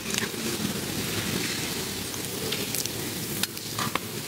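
Church congregation exchanging the sign of peace: many voices greeting one another at once, blending into a steady murmur, with a couple of sharp knocks near the end.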